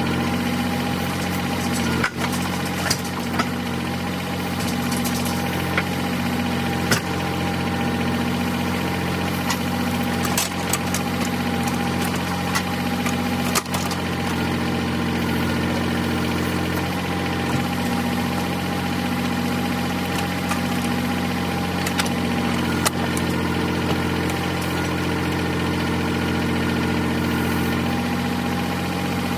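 Engine of log-loading machinery running steadily, with a hum that pulses on and off about once a second and a few sharp knocks, as the logs of a big spruce are loaded onto the truck.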